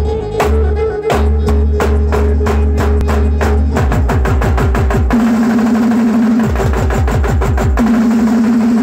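Loud band music: drums beaten with sticks in a steady rhythm over a deep bass line and a held note. About four seconds in, the drumming changes to fast, rapid strokes.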